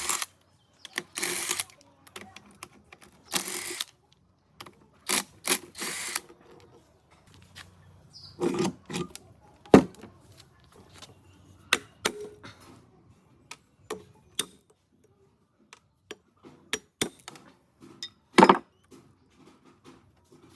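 Metal hand tools and engine parts clinking and clanking at an irregular pace, with a few short rasping bursts in the first six seconds.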